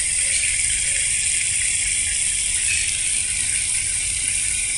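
Steady hiss of a garden fountain jet spraying and water running over rocks into a pond, even throughout.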